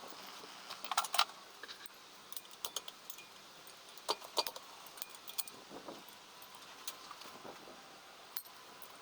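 Scattered light metallic clinks and short jingling rattles of hand tools and small metal parts being handled, loudest about a second in and again around four seconds in.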